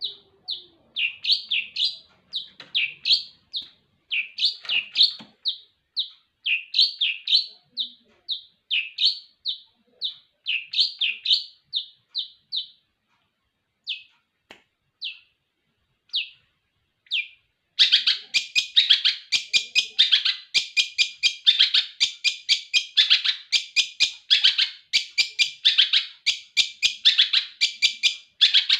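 Long-tailed shrike (cendet) singing: quick phrases of short, high chirps with brief pauses, and a few lone notes around the middle. A little past halfway it breaks into an unbroken, fast run of chattering chirps.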